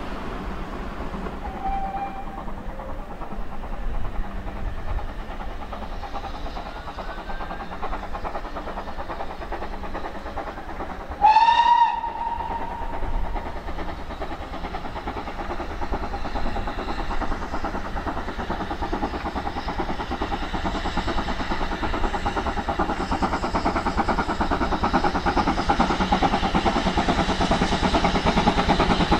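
GWR 2884 class 2-8-0 steam locomotive no. 3850 approaching with a train, its exhaust chuffing louder as it nears. About eleven seconds in it sounds its whistle once, a short high whistle.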